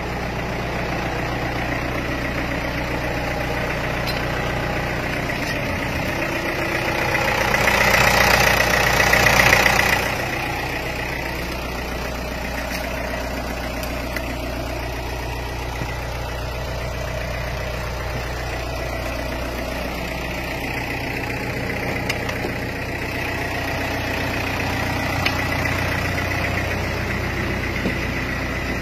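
Medium bus's diesel engine idling steadily. About eight seconds in, a louder rushing noise swells for a few seconds and stops abruptly.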